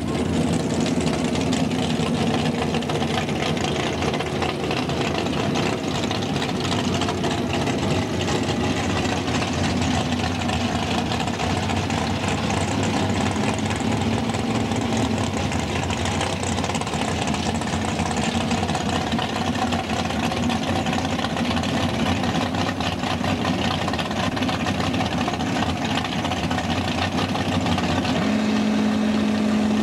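Drag racing car's engine running at a steady idle, loud and even, with no revving.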